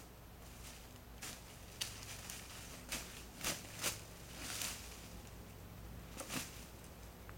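Slow, uneven footsteps crunching in dry leaf litter, then the rustle and crunch of a body dropping onto the leaves about six seconds in, over a steady low hum.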